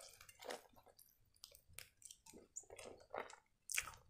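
Faint chewing of a mouthful of shawarma, heard as scattered soft, wet mouth clicks and smacks.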